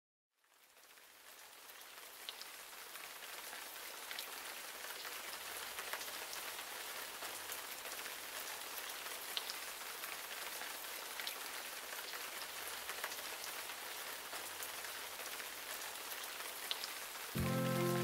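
Steady rain falling on wet ground and puddles, fading in over the first few seconds, with scattered single drop splashes standing out. Music comes in just before the end.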